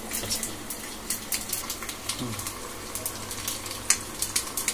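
Oil tempering of mustard seeds, green chillies and curry leaves sizzling in a kadhai, with many light, irregular crackling ticks over a faint hiss.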